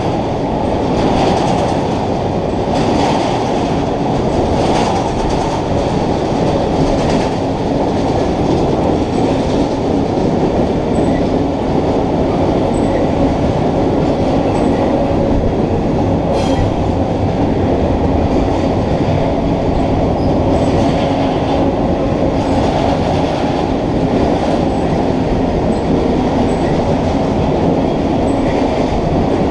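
Empty double-stack intermodal well cars of a freight train rolling past on steel wheels: a loud, steady rumble with a repeated clack of the wheels on the rail.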